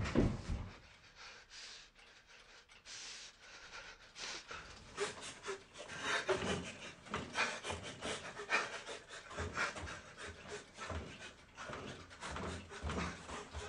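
A man sobbing in grief, ragged gasping breaths coming in a quick, irregular stream. It is faint at first and grows stronger about four seconds in.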